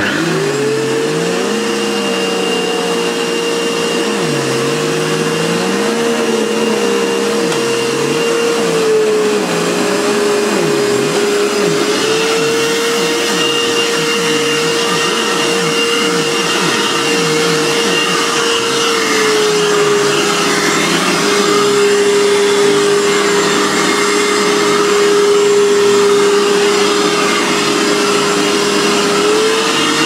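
Hoover Purepower Autosense U3456 bagged upright vacuum cleaner running on carpet with its brush roll set in the second position, picking up sand. The motor's steady hum dips slightly in pitch twice for several seconds. During the first ten seconds a lower sound rises and falls about every two seconds.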